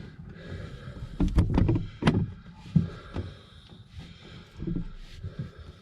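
A camera being knocked over, clattering against a hard surface: a quick cluster of knocks about a second in, the loudest at about two seconds, then a few lighter bumps and handling noise as it is picked up.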